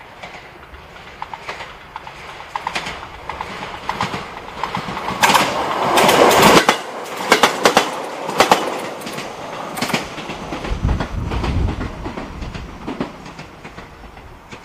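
A train passing close by, its wheels clicking over the rail joints; the sound builds to its loudest about halfway, then fades into a low rumble.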